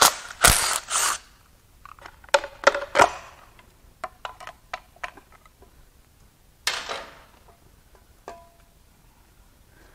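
Hand tools and metal engine parts at work: a burst of scraping and rattling at the start, sharp metallic clicks and clanks around two to three seconds in and scattered ticks after, as the last bolts come out of an SR20DET's timing cover and the cover is worked off. A short metallic ring sounds about eight seconds in.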